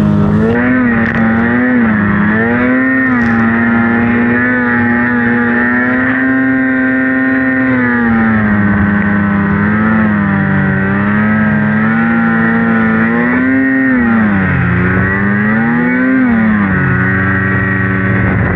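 Polaris RMK Khaos snowmobile's two-stroke engine running hard through deep powder, its revs rising and falling as the throttle is worked, held steady for a few seconds in the middle and dipping sharply twice near the end.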